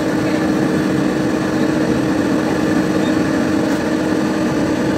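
Komatsu hydraulic excavator's diesel engine running steadily at working speed as the bucket digs into a pile of soil, a constant drone with a strong steady hum.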